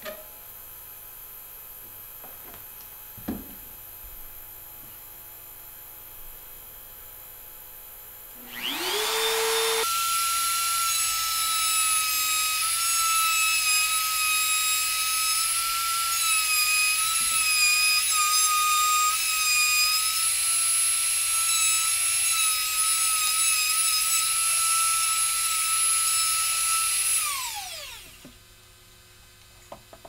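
Bosch trim router switched on about a third of the way in, rising quickly in pitch to a steady high whine as it cuts the pocket for a half-mortise lock with a pattern bit. It is switched off near the end and winds down. A couple of faint clicks come before it starts.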